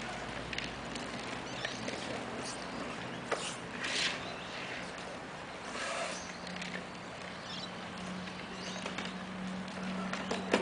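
Plastic wheels of toddlers' ride-on toys rolling and rattling over wet concrete, with scattered knocks and scrapes. A low steady hum comes in about halfway.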